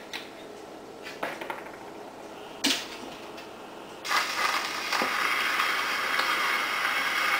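A few handling clicks from a wind-up portable phonograph as it is set going and the soundbox is swung over to the record. About four seconds in, a steady surface hiss starts as the needle runs in the lead-in groove of a spinning 78 rpm Victor record, before any music.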